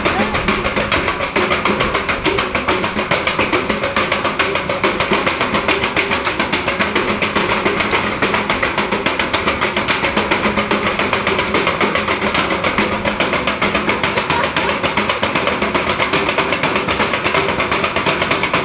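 A rapid, steady mechanical clatter of even, sharp knocks, about seven a second, running without a break.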